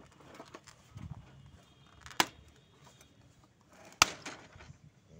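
Two sharp plastic clicks, about two seconds apart, the second louder, as the HP 5820 printer's detached ink tank unit with its two ink-lock knobs is handled against the printer body.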